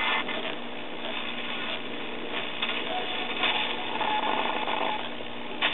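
Hallicrafters S-200 vacuum-tube receiver's speaker giving off shortwave static, a steady hiss with crackle, while the dial is tuned across the band. A brief steady whistle, a heterodyne, comes through about three and a half seconds in.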